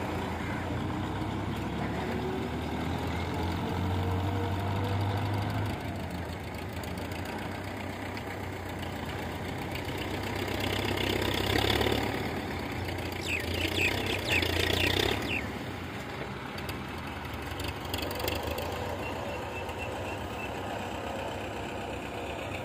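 Diesel tractor engine running steadily under load as it pulls a trailer heaped with earth. About halfway through a louder noise swells for several seconds, with a few brief high chirps near its end.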